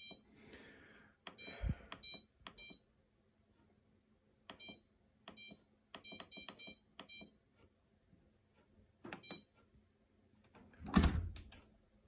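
The push-button control panel of a Maytag MBD8959SFH dishwasher beeps as its keys are pressed: a dozen or more short, high electronic beeps in irregular runs, each beep a key press being registered. Near the end there is a louder thump as the dishwasher door is shut.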